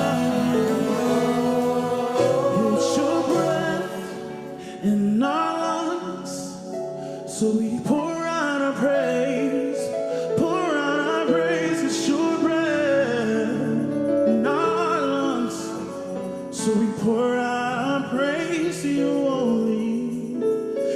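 Gospel worship singing: voices singing together over sustained keyboard accompaniment.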